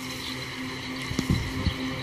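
Electric locomotive approaching along the track, a steady low hum, with a few low thumps of wind on the microphone in the second half.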